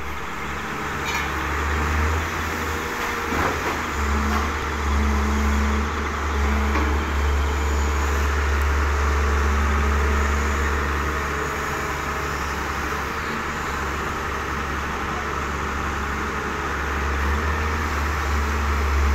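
Diesel engine of a Hitachi wheeled excavator running steadily with a deep, even drone while it works its boom and bucket.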